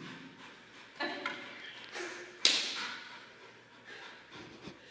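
A rubber ring toy thrown onto a hard floor lands with a single sharp smack about two and a half seconds in, then fainter knocks as it bounces and rolls.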